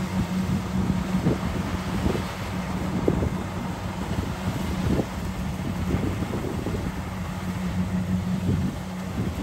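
Kubota DC-70 combine harvester's diesel engine running steadily, with irregular knocks from the machine over the hum.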